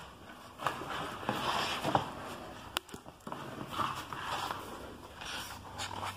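Hardcover book with a paper dust jacket being handled and opened: irregular rustling of paper and cover, with one sharp click about three seconds in.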